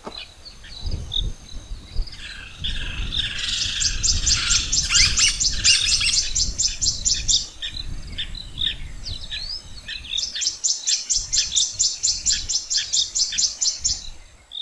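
Birds calling: scattered high chirps and two long runs of rapid, evenly repeated high notes, about five a second, each lasting several seconds. A low rumble runs underneath.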